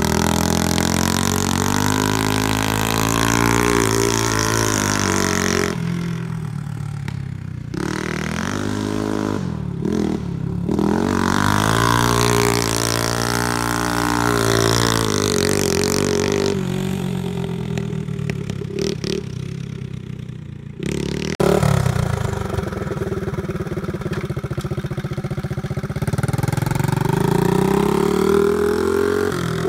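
A homemade trike's Honda-style 107cc engine revving up and down while spinning donuts, its pitch rising and falling over and over. It runs softer and lower in a couple of stretches, and the level jumps suddenly about two-thirds of the way through.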